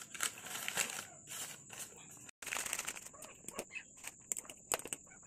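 Newspaper cone crinkling and rustling as cooked pea sundal is spooned into it, with a few sharp clicks and taps.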